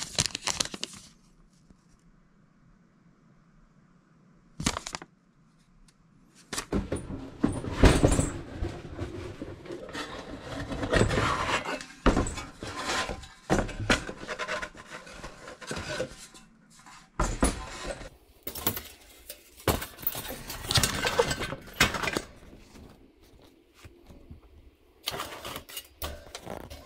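Metal parts and tools being handled during appliance repair work: irregular clatter, knocks and scraping. There is a quiet pause of a few seconds near the start.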